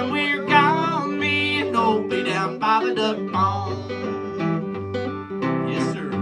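A man singing a country song live while strumming an acoustic guitar.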